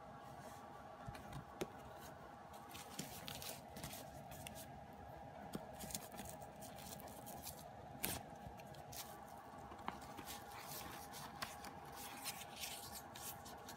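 Plastic packaging and bubble wrap rustling and crinkling in irregular short bursts as small items are handled, with a few sharp clicks. A faint steady tone runs underneath.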